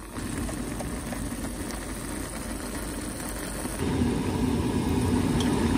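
A pot of Teumsae ramyeon boiling on the stove, giving a steady low bubbling rumble that gets louder about four seconds in.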